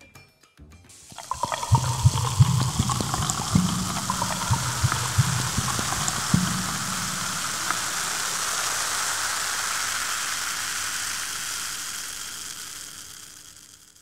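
Water pouring into a glass with splashing and glugging for several seconds, then a steady fizzing hiss of carbonated bubbles that fades out near the end.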